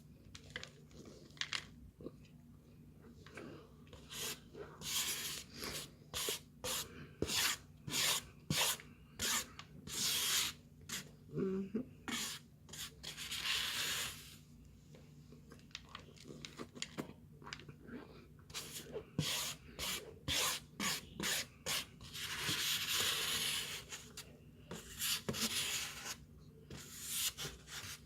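Dry scraping and crunching of packed tapioca starch: many short, sharp rasping strokes in quick runs, with a few longer rasps in the middle and near the end.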